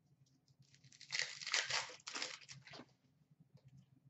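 A trading-card pack wrapper being torn open and crinkled by hand, an uneven rustling tear lasting about two seconds.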